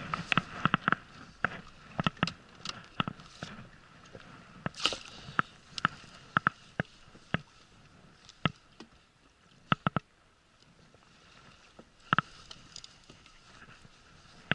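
Irregular sharp clicks and knocks of fishing gear being handled on an inflatable boat: the landing net and rod knocking about as the net is freed and readied, over small water sounds against the hull.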